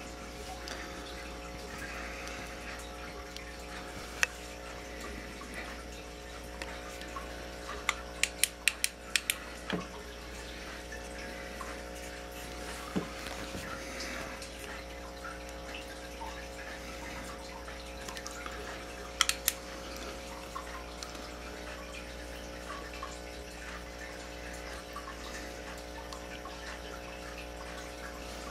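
Steady hum with an even trickling, water-like hiss, broken by a few sharp clicks: one about four seconds in, a quick run of them around eight to nine seconds in, and a close pair about nineteen seconds in.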